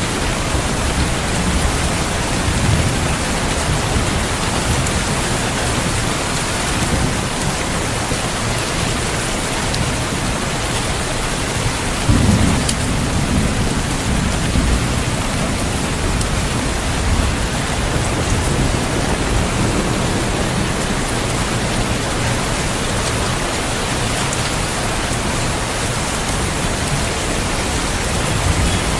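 Steady heavy rain with low rumbles of thunder, the loudest roll near the middle.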